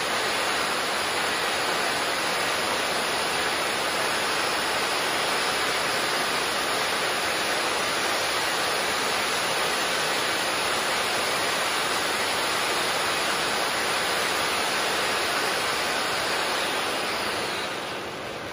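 Three Celtic Fireworks 'Tears of an Angel' fountains burning together, a steady rushing whoosh of spraying sparks that dies down near the end as the fountains burn out.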